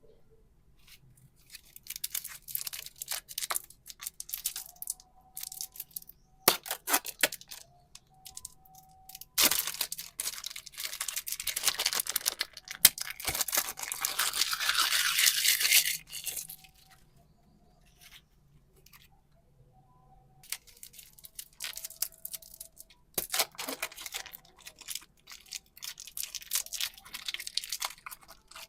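Close-miked crinkling, crackling and tearing from super clay and its packaging being handled and pulled open. There is a long, dense, loud stretch of tearing in the middle, a lull, then more scattered crackles.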